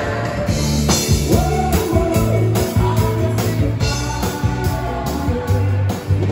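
Live band playing: electric guitar, keyboard and drum kit, with a steady beat.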